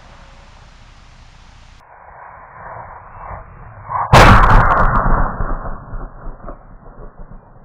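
A single loud bang from a homemade 3-inch firework shell going off about four seconds in, cutting in suddenly and rolling away in a long echo over the next few seconds.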